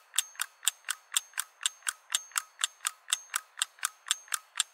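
Even, rapid mechanical ticking like a clock, about four sharp ticks a second, used as a sound effect under an end-card logo.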